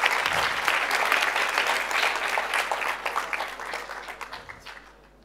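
Audience applauding: many hands clapping together, thinning out and dying away over the last two seconds.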